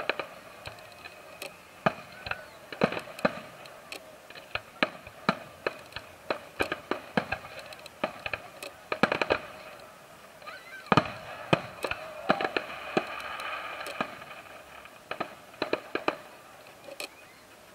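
Aerial firework shells bursting overhead in an irregular string of sharp bangs and crackles, with tight clusters of rapid reports about nine and eleven seconds in.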